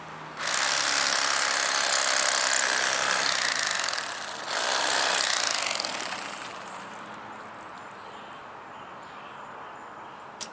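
Cordless Bubba Blade electric fillet knife running in two bursts, a long one of about three and a half seconds and then a short one of about a second and a half after a brief pause.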